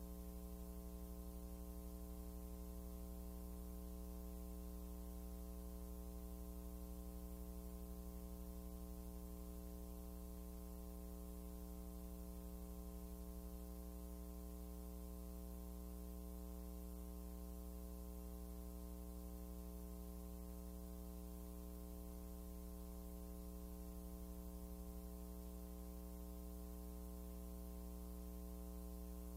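Steady electrical mains hum with a stack of overtones, unchanging throughout: hum on an old film soundtrack.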